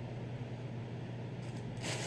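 Eating boiled crawfish and shrimp: faint clicks of shells being handled, then a brief hiss-like crackle near the end, over a steady low hum.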